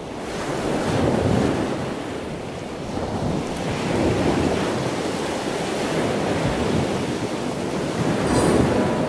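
Ocean surf: a steady rush of waves that swells and eases a few times.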